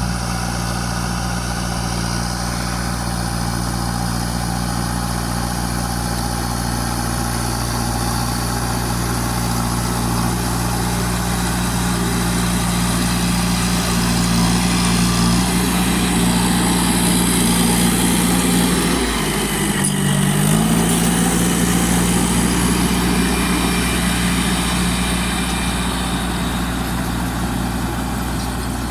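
Dressta crawler bulldozer's diesel engine running steadily, growing somewhat louder from the middle on. About two-thirds of the way through, its note dips briefly and climbs back up.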